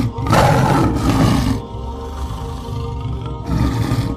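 Male lion roaring in two loud rough bursts, one lasting about a second near the start and another beginning near the end, over steady background music.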